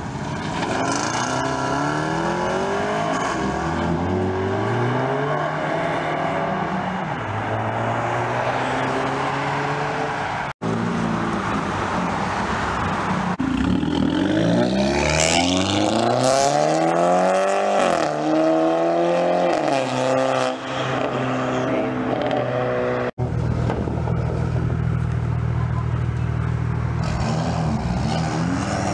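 Several cars accelerating away one after another, their engine notes rising again and again through the gears. The loudest stretch, in the middle, is an Audi A5 coupe revving hard as it pulls out. Near the end another car idles steadily, then starts to rev.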